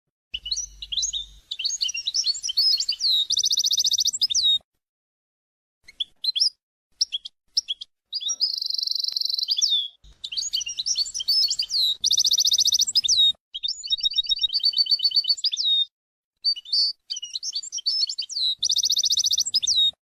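A small songbird singing: rapid high trills, chirps and rising and falling whistles in phrases of a second or two, with short pauses between them.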